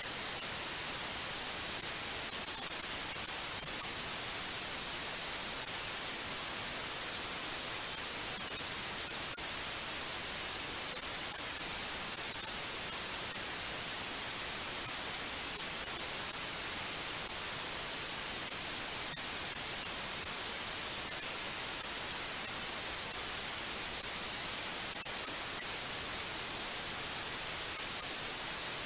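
Steady white noise: an even, unchanging hiss, brightest in the treble.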